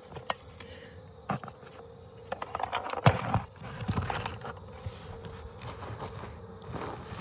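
Clicks, scrapes and knocks of hands handling a plastic under-dash trim cover while lining up and starting a screw, busiest in the middle with the loudest knock about three seconds in.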